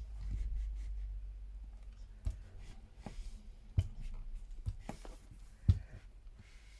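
A household iron pressed and pushed over embroidered fabric on a pressing mat, ironing off the pen lines: a rubbing, scuffing sound with several soft knocks as the iron is moved and set down, the loudest knock near the end.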